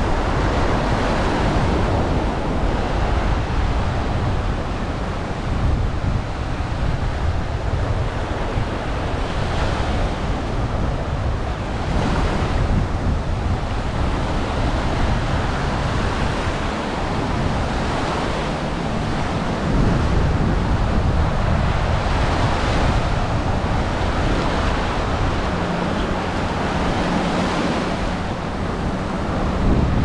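Small waves breaking and washing up a sandy shore in a steady surf hiss that swells every few seconds as each wave comes in, with wind rumbling on the microphone.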